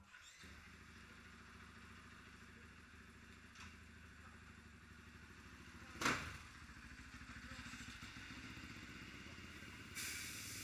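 Motorcycle engines running in a paddock: one starts up right at the beginning and runs steadily. About six seconds in there is a sudden, much louder burst as a bike passes close by, and the sound swells again near the end as another bike rides past.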